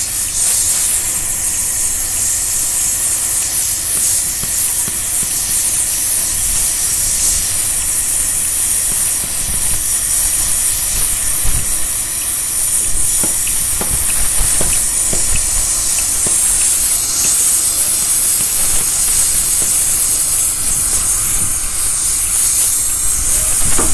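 Oxy-fuel gas torch hissing steadily as its flame works the steel of a tram rail joint, throwing sparks, with a few faint clicks and pops in the middle.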